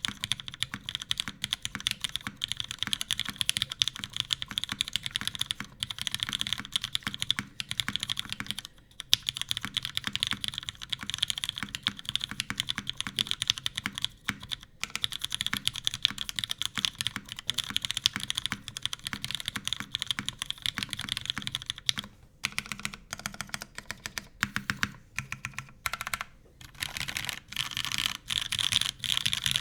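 Typing on a custom 1098-layout mechanical keyboard with lubed Cherry MX Retooled Black linear switches, a full aluminium top-mount plate with no foam, and CRP keycaps. Fast continuous keystrokes, with a brief pause about nine seconds in, then shorter separate bursts of typing near the end.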